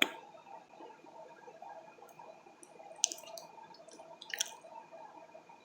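Quiet room tone with two faint short clicks or taps, about three seconds in and again a second and a half later.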